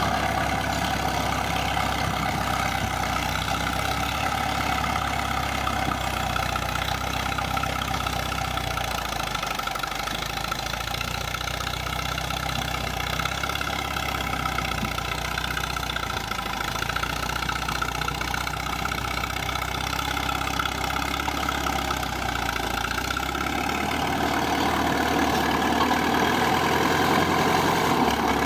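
Caterpillar D4 crawler bulldozer's diesel engine running steadily as the dozer pushes a blade-load of dirt, growing louder near the end as it comes closer.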